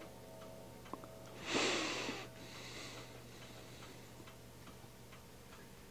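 Faint steady ticking over a low hum, with one loud, short breath about a second and a half in.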